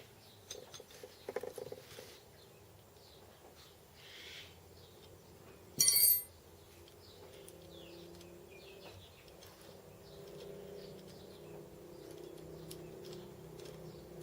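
Small metal parts being handled and fitted, with a few light clicks early on and one sharp, ringing metallic clink about six seconds in. Faint low wavering tones sit in the background through the second half.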